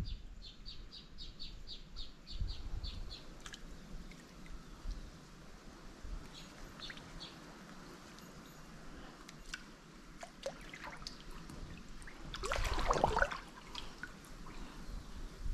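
A bird calls a quick run of short high notes, about three a second, for the first three seconds. Water splashes and drips as a fishing net is hauled up out of the water by hand, loudest about two-thirds of the way in.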